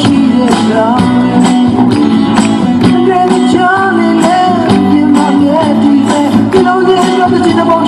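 Music with a steady beat and a wavering melody line over held lower notes.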